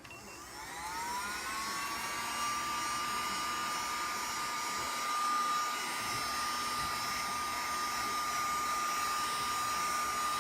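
Heat gun switched on: its motor whine rises over the first second or so and then holds steady over a rush of blown air.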